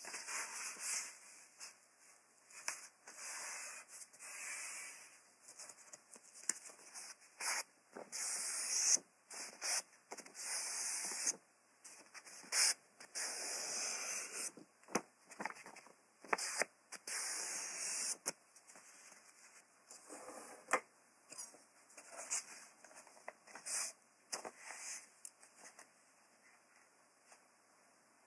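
A sheet of paper being handled and slid over a desk mat, with cloth sleeves brushing across it: a run of soft rubbing swishes lasting a second or two each, broken by short crisp ticks, getting quieter and sparser near the end.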